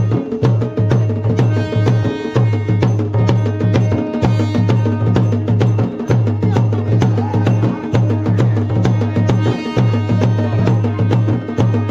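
Traditional folk drumming for a ritual dance, playing a rapid, steady beat of many strokes a second.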